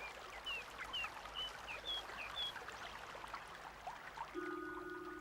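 A small bird chirping, a string of short chirps about two a second, over a soft stream-like hiss; near the end a held chord of background music comes in.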